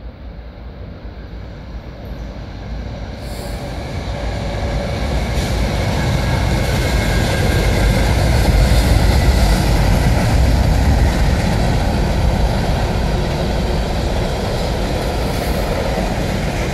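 Train passing: a rumble that grows louder over the first eight seconds or so, then holds steady, with a faint high tone over it in the middle.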